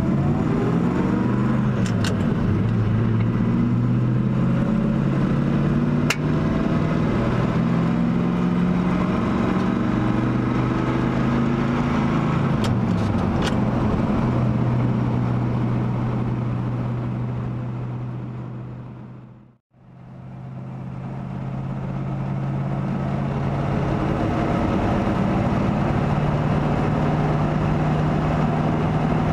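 1970 Ford F-250 Highboy pickup's engine heard from inside the cab while driving. The engine note rises and falls in the first half, then holds steady at a cruise, with a few light clicks. The sound fades out to a moment of silence about two-thirds of the way through and fades back in.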